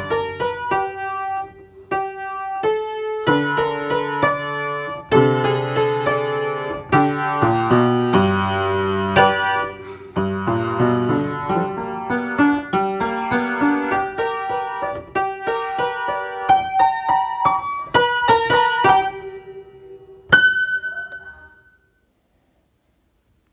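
Piano music, a tune of struck notes and chords, ending on a single last note that rings out near the end.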